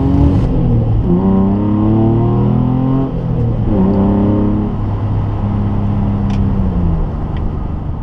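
Car engine heard from inside the cabin, accelerating through the gears of a manual gearbox: the pitch climbs, drops at gear changes about one and four seconds in, then holds and falls away near the end.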